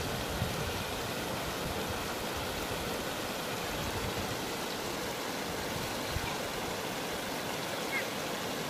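River water rushing over shallow rocky rapids: a steady, even rushing.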